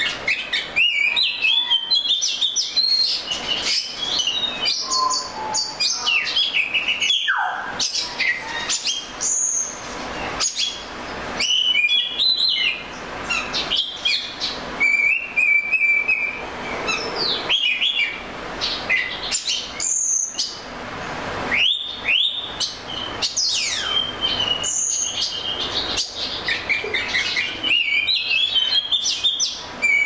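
Male oriental magpie-robin singing a long, varied song of whistles, trills and rising and falling glides, with many short sharp clicks mixed in.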